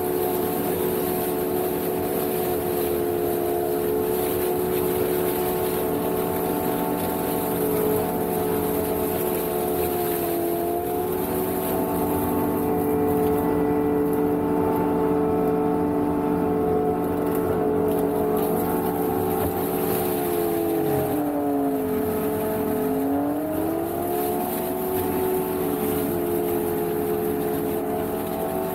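Energreen ILF S1500 self-propelled boom mower running steadily, its engine and boom-mounted flail mulcher head cutting dry reeds and grass. About two thirds of the way through, the pitch dips briefly and comes back up.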